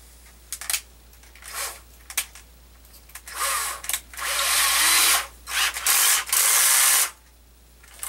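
Cordless drill running in three short bursts of about a second each, after a few light clicks, as a bit is tightened in its chuck.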